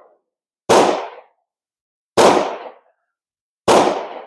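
Three gunshots about a second and a half apart, each a sharp bang with a short fading tail.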